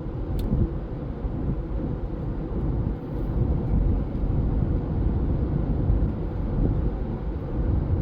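Cabin noise of a 2017 Honda CR-V cruising at about 45 mph: a steady, low road-and-tyre rumble, with a faint click about half a second in.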